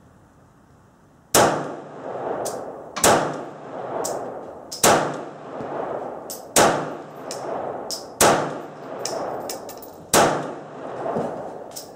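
Six shots from a P-64 pistol in 9x18mm Makarov, fired one at a time about every one and a half to two seconds, each with a ringing tail and fainter clinks between them. The pistol is cycling and firing normally, without the malfunction it had on the earlier attempts.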